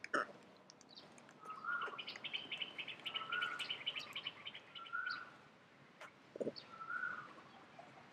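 Wild birds calling. One repeats a short, even-pitched note about every second and a half, and another gives a rapid, high trill for a couple of seconds in the middle. Two short, lower sounds come near the start and about six and a half seconds in.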